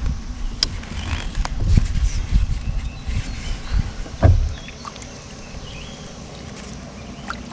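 Irregular low bumps and knocks with a few sharp clicks, as of fish and gear being handled against a kayak hull, dying down after about four seconds to a quiet steady background.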